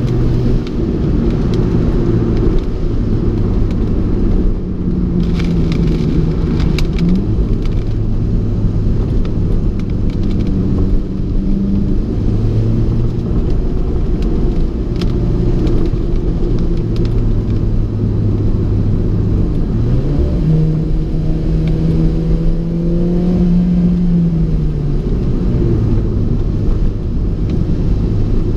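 Alfa Romeo 4C's turbocharged four-cylinder engine running under way, its note rising and falling several times with the revs, over a steady rush of road noise. A few brief clicks sound about five to seven seconds in.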